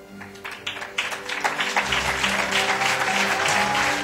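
Audience applause, starting as a few scattered claps and filling out into steady clapping about a second and a half in, over background music.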